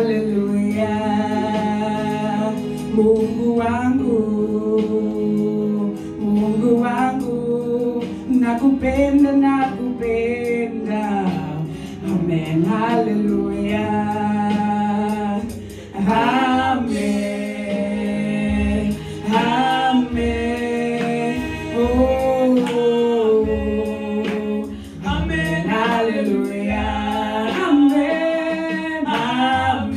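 Two women singing a gospel song into handheld microphones, their voices carrying the melody with short breaths between phrases.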